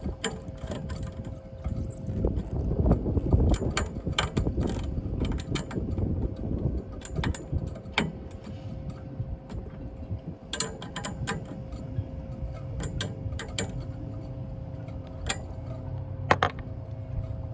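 Irregular metal clicks and rattles from hardware being worked by hand on a stainless-steel fender basket bracket on a boat's bow rail, over a low rumble and a faint steady hum.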